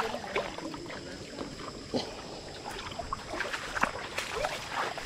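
Running water of a shallow muddy stream, with scattered splashes and sloshes of feet wading through it.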